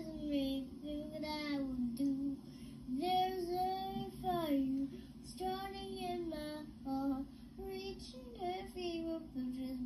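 A young girl singing a song alone without accompaniment, in a child's voice with several long held notes and notes sliding between pitches.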